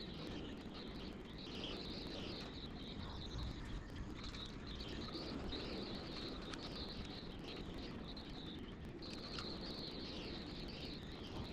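Outdoor ambience: a steady high-pitched chirping of insects, fading and returning in stretches, over a low rumble of wind.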